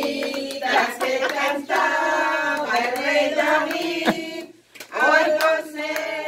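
A small group of voices singing together, with hand claps among them; the singing breaks off briefly about four and a half seconds in, then starts again.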